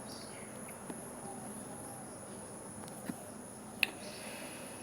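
Quiet background hiss with a thin, steady high-pitched tone running through it, and two faint clicks about three and four seconds in.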